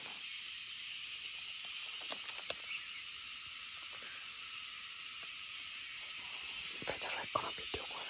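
Steady hissing forest ambience. A few light clicks and rustles come through, most of them close together near the end.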